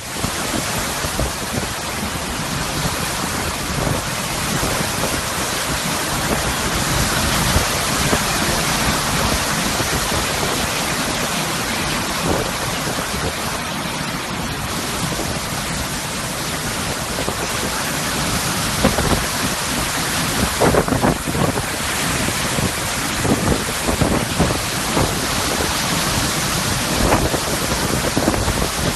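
Storm wind and heavy rain blowing steadily, a dense rushing noise, with sharp buffeting knocks on the microphone coming more often in the second half.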